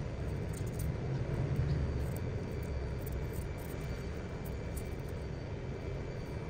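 Steady low background rumble, with a few faint light ticks over it.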